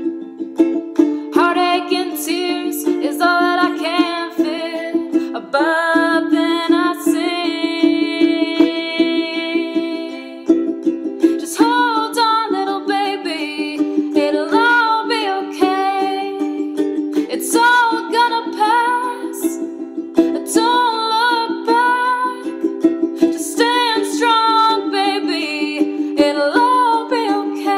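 Background music: a song in a stretch with no words sung, a repeating low accompaniment under a melody line that bends in pitch.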